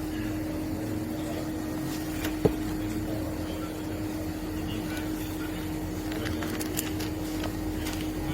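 Steady mechanical hum holding one even tone, with a single sharp click about two and a half seconds in and a few faint ticks near the end.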